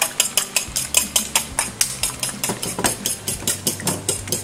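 Metal fork beating eggs in a ceramic bowl, clicking against the bowl in a fast, even rhythm of about five strokes a second.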